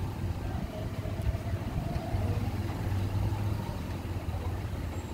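A vehicle engine idling, a steady low hum.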